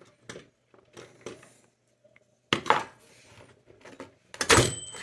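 Small metal parts and new rubber feet being handled against a vintage Remington portable typewriter: a few light clicks early on, then louder clinks and clattering about halfway and again near the end.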